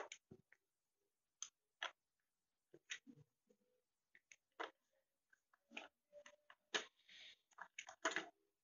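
Plastic toy excavator scoop digging into kinetic sand: faint, irregular crunching scrapes and small clicks.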